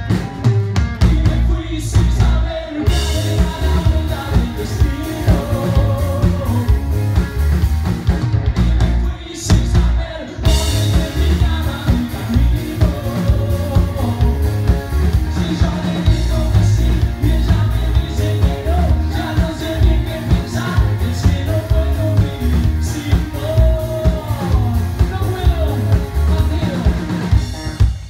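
Rock band playing live: a male singer over electric guitar, bass guitar and drum kit. The band briefly drops out about nine to ten seconds in, then comes back in.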